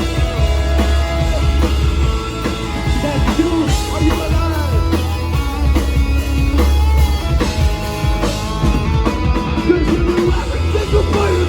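Live rock band playing loudly: drum kit, heavy bass and a singer over the band.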